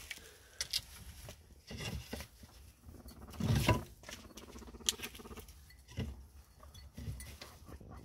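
Guinea pigs scuffling and rustling in wood-shaving bedding, with scattered small clicks and a louder muffled thump about three and a half seconds in.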